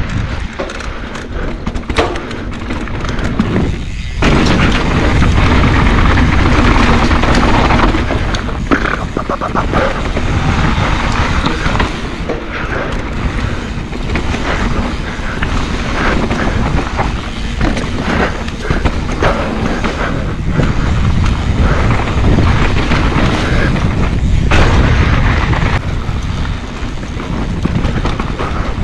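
Mountain bike riding down a dirt singletrack: wind rushing over the microphone, tyre noise and frequent rattling knocks from the bike over rough ground.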